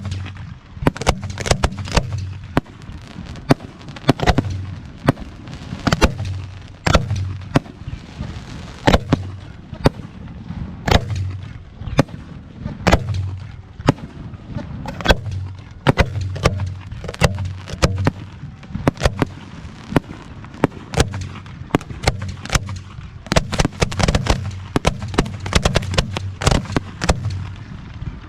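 Aerial fireworks display: a rapid, continuous barrage of shell bursts, several sharp bangs a second over a low rumble.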